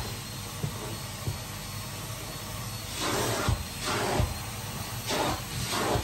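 Vacuum cleaner running with its crevice tool: a steady motor hum under rushing suction air. About halfway through, the air noise starts rising and falling over and over.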